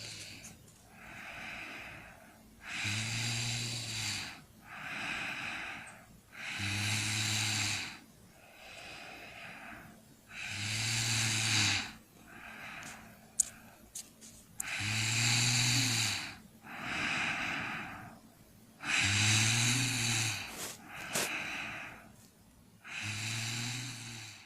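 A person snoring in a slow, even rhythm: six loud, low snores about four seconds apart, each followed by a softer breath. A few brief sharp clicks come in the middle.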